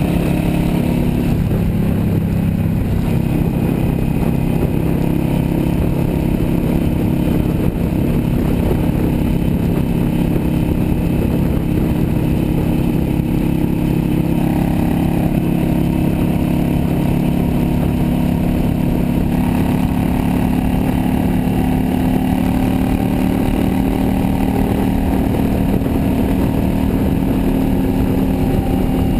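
Yamaha V-Star 650's air-cooled V-twin engine running steadily at highway cruising speed, its pitch drifting slightly, with wind rushing over the handlebar-mounted camera's microphone.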